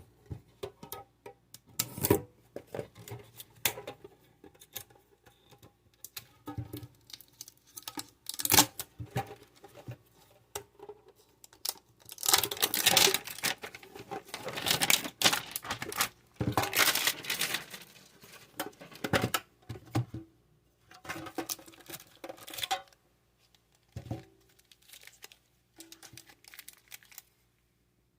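Plastic packaging on a Pokémon card tin being torn open and crinkled, in irregular bursts with clicks and taps of handling, busiest and loudest about halfway through.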